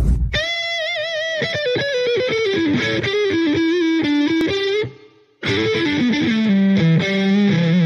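Intro music on distorted electric guitar, played in two phrases of bending, falling notes with a short break about five seconds in, opening on a brief burst of noise.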